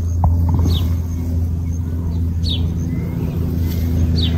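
A steady low mechanical drone, like an engine or motor running, holds through, with a few short bird chirps over it.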